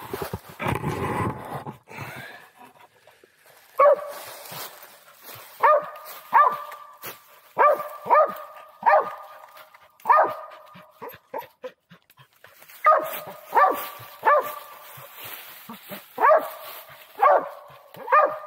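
A young mountain cur barks treed at the base of a squirrel tree, a steady run of single barks about one a second that starts about four seconds in, with short pauses. It is the dog's signal that it has a squirrel up the tree. A rustle of dry leaves underfoot comes before it in the first two seconds.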